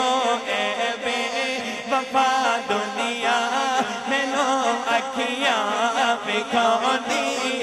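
Male voice chanting a Punjabi naat, a long melodic passage whose pitch glides and wavers between the sung lines.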